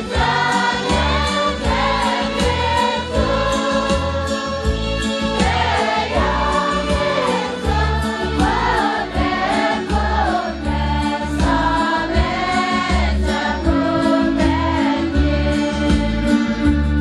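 A choir singing a Christian hymn over music with a steady beat.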